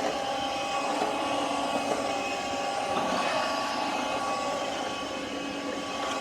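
Shark cordless stick vacuum running steadily in its hardwood/tile floor mode, a constant motor whir with a thin steady whine.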